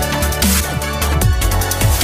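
Electronic dance music with a heavy beat and sliding bass drops.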